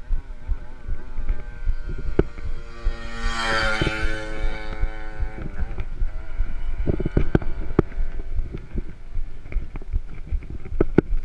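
Wind buffeting a bicycle-mounted camera's microphone while a motor vehicle's engine approaches, grows louder and drops in pitch as it passes about five seconds in. Sharp knocks from the bike rattling over the concrete road follow later.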